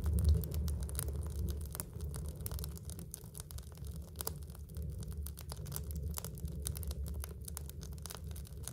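Split firewood burning in a wood stove's firebox: a constant stream of crackles and small pops over a low, steady rumble.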